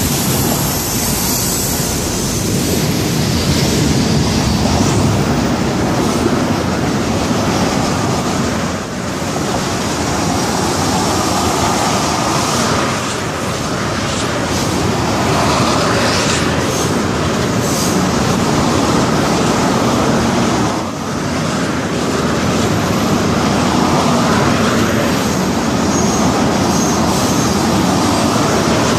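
Freight cars of a Florida East Coast Railway train, mostly tank cars, rolling past: a steady rumble and clatter of steel wheels on the rails, with now and then a faint wheel squeal.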